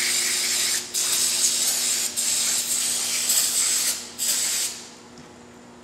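Aerosol can of brake cleaner hissing as it sprays onto a disassembled brake caliper half to rinse out the brake fluid. It goes in long spurts with short breaks about a second in, two seconds in and around four seconds, then stops shortly before the end.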